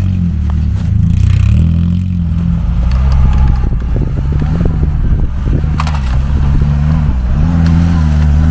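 Off-road vehicle's engine running low, at idle, as the vehicle creeps downhill, with scattered scraping and clicking in the middle. The engine pitch rises slightly near the end.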